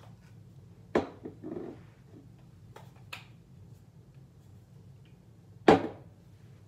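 Two sharp knocks about five seconds apart, the second the louder, with a few soft clicks between.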